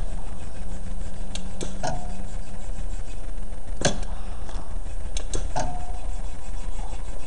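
Pneumatic robot frame on an embroidery machine being cycled by its foot switch: sharp clicks as the hooks close and release, in two quick groups of three about 1.5 s and 5.5 s in, with single clicks at the start and about 4 s in. A steady low hum runs underneath.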